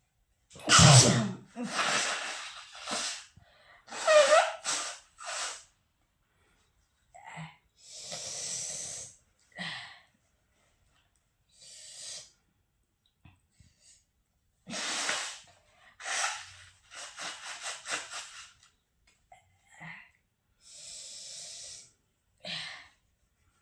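A person sneezing again and again, with breaths between the sneezes; the loudest sneeze comes about a second in.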